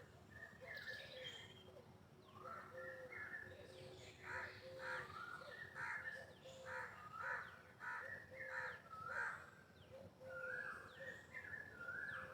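Peacock giving a faint run of short, repeated calls, coming about once every two-thirds of a second through the middle of the stretch.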